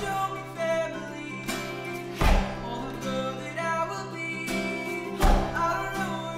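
Background music: a gentle song with acoustic guitar and a singing voice over held low notes, with a heavy low beat about every three seconds.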